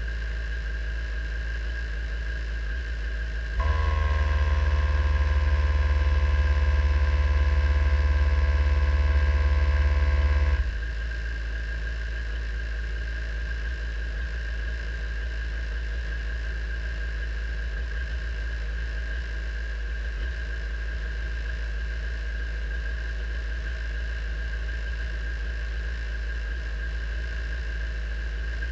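Radical sports racing car idling in neutral while stationary: a steady low drone with a constant high-pitched whine. About three and a half seconds in, a louder hum with a steady tone comes in suddenly, holds for about seven seconds and cuts off abruptly.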